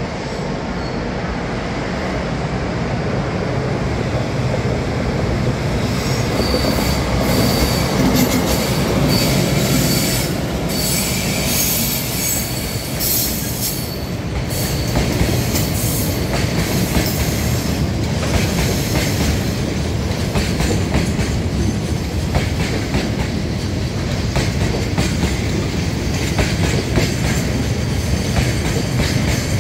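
A JR Freight EH200 electric locomotive and its train of Taki oil tank wagons passing, growing louder over the first several seconds into a steady rumble. The wheels clatter over the rail joints, and a high wheel squeal sounds from about six seconds in to about fourteen seconds.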